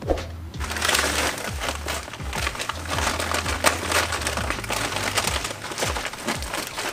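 Paper bag of charcoal briquettes crinkling and rustling as it is handled and opened, a dense run of crackling from about half a second in.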